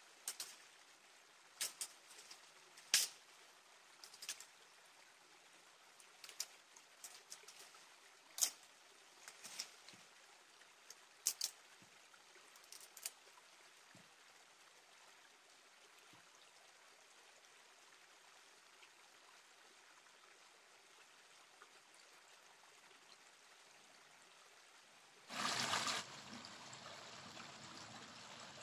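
Small fire of dry twigs and leaves crackling: scattered sharp snaps and cracks over a faint hiss in the first half. About 25 s in comes a brief loud rush, then a louder steady hiss as the flames burn.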